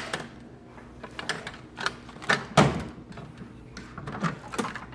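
Tools being handled in a metal toolbox drawer: a handful of separate sharp clicks and knocks, the loudest about two and a half seconds in.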